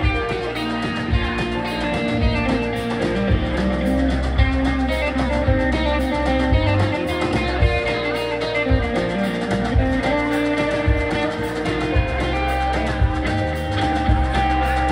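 Live blues-rock band playing an instrumental passage: a Stratocaster-style electric guitar plays over keyboards, a low bass line and a drum kit keeping a steady beat.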